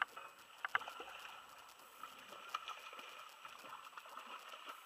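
Water sloshing faintly against a small aluminum boat's hull as it drifts, with a few sharp knocks: one at the start, a quick pair under a second in, and one about two and a half seconds in.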